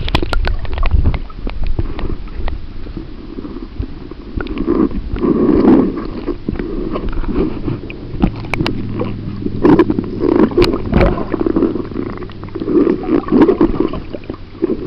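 Muffled underwater sound of lake water gurgling and sloshing around a submerged camera, with scattered sharp clicks and knocks. A low steady hum comes in about halfway through.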